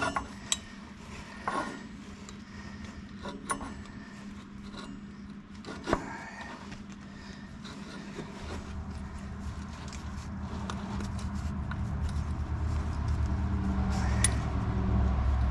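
Scattered metal clicks and knocks from a steel drawbar pin and its retaining clip being worked by hand into a tractor's drawbar hanger, the strongest about six seconds in. From about halfway a low steady rumble comes in and grows louder toward the end.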